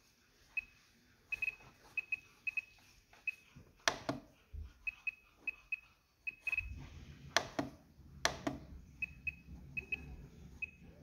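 RadioMaster TX16S transmitter giving short, high beeps in irregular quick runs as its scroll wheel steps through characters while the model name is edited, with a few sharper clicks from pressing the wheel and handling the radio.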